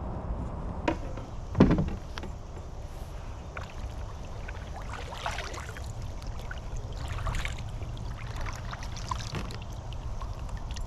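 Handling noises aboard a fishing kayak: a sharp knock, then a louder thump on the hull about a second and a half in, followed by light clicks and splashes of water, over a steady low rumble.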